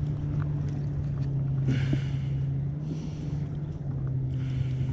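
A boat motor runs steadily with a low, even hum. A few short rushes of hiss come and go over it.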